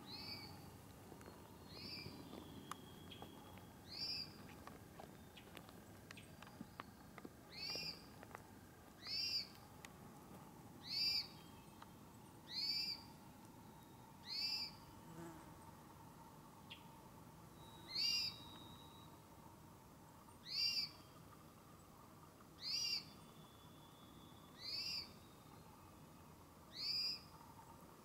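A small forest bird repeating one short, high whistled call note about every two seconds.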